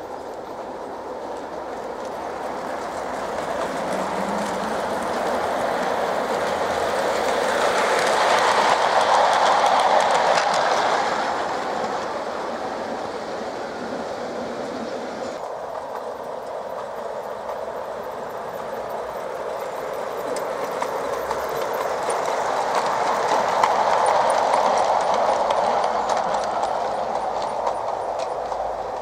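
LGB G-scale model train, hauled by a battery-powered Corpet-Louvet locomotive, rolling along garden track with the wheels clicking and rattling over the rail joints. It grows louder and fades as a train passes, twice: loudest about nine seconds in and again about twenty-four seconds in.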